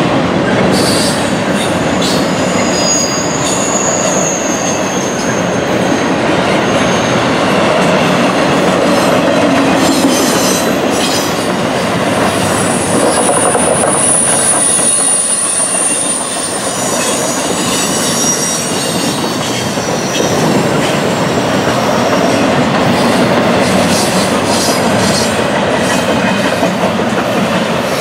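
A CSX intermodal train's double-stack container well cars rolling past, a steady rumble of wheels on rail with scattered clicks and a few high-pitched wheel squeals that come and go.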